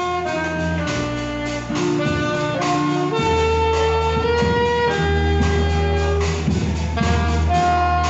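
Saxophones and violins played by a children's ensemble, a slow melody in long held notes. A deep bass note joins about three seconds in and carries on under the melody.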